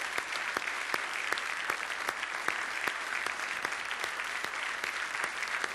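A large congregation applauding, many hands clapping steadily together.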